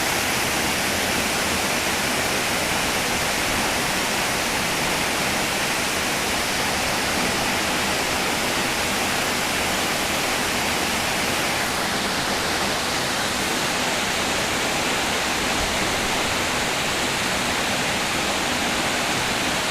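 Waterfall: a steady, even rush of falling water, a little duller from about twelve seconds in.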